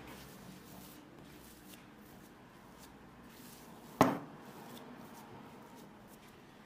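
Silicone spatula pressing and scraping cocoa cookie dough around a ceramic bowl, a soft rubbing sound, with one sharp knock about four seconds in.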